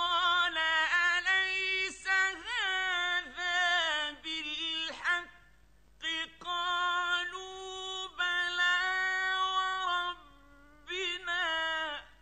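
A male Quran reciter chanting in the melodic mujawwad style, in a high voice. He holds long, ornamented notes that bend and waver, in two long phrases with a breath between them about 5 s in, then a short phrase near the end.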